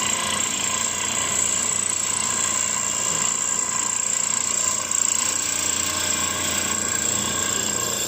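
Black and Decker electric drill running steadily to drive a small band saw, with a constant high whine and a steady motor hum.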